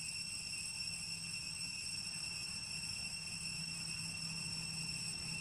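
Insects droning with a steady high-pitched tone over a faint low hum.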